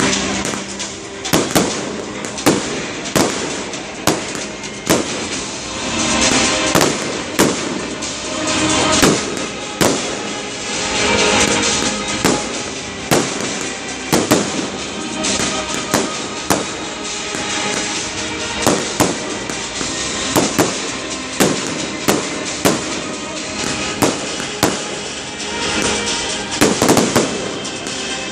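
Fireworks display: aerial shells bursting in irregular bangs, several close together in places, amid continuous crackling and hissing.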